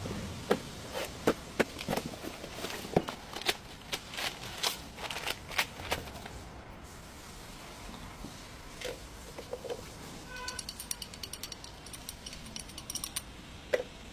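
Hand tools working on a car's front suspension and axle: sharp metal clanks and knocks, then a quick run of rapid clicks about ten seconds in, and one more knock near the end.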